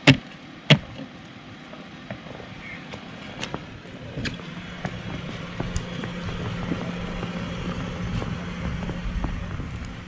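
Two sharp knocks less than a second apart as traction boards are set under the ProMaster van's wheel, then the van's engine idling, a steady low hum that grows louder from about four seconds in.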